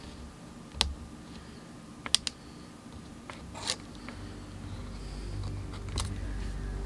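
Scattered small clicks and taps of iPad parts and tools being handled on a work surface, a few sharp ticks with a quick double click about two seconds in.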